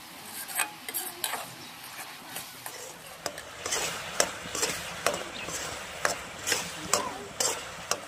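Karonda berries frying in bubbling oil in a metal kadhai, sizzling steadily. A steel spoon scrapes and clinks against the pan every second or so as they are stirred.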